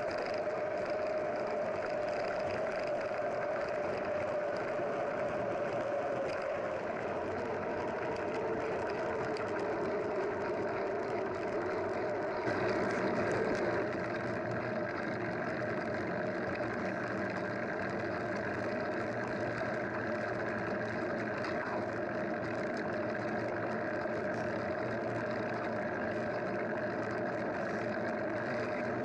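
An engine running steadily, with a slightly louder stretch about twelve to fourteen seconds in.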